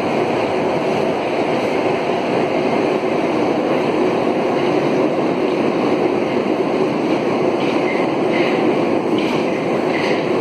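Alstom AS 02 steel-wheeled metro train running at speed through a tunnel, heard from inside the car: a steady, loud rumble of wheels on rails.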